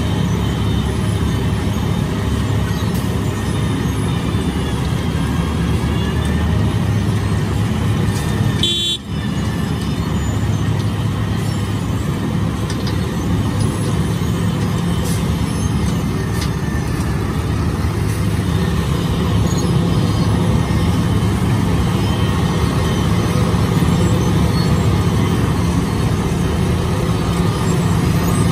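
Wirtgen W 120 CF compact cold milling machine at work: a steady, loud drone of its diesel engine and cutting drum as the conveyor loads millings into a dump truck. The sound dips briefly about nine seconds in.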